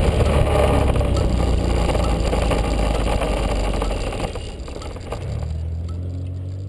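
Honda Elite 80 scooter's small single-cylinder four-stroke engine and the rush of wind and road noise dying away as the scooter slows. The engine then settles to a steady idle from about five seconds in.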